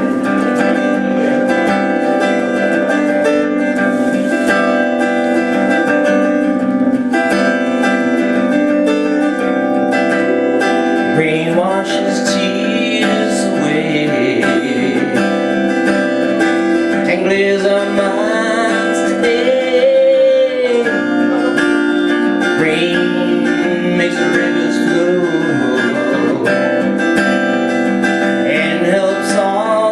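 Acoustic guitar playing a song, joined by a man singing from about eleven seconds in.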